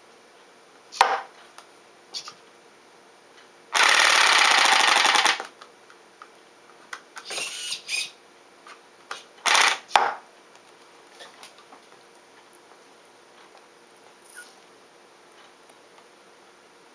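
Homemade robot arm with a coffee balloon gripper working: scattered clicks and knocks, and a loud, rapid mechanical buzz about four seconds in that lasts about a second and a half. A shorter buzz follows near eight seconds, then two knocks.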